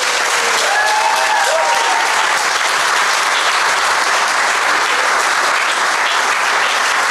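Audience applauding steadily at the end of a children's song, with a few whoops about a second in.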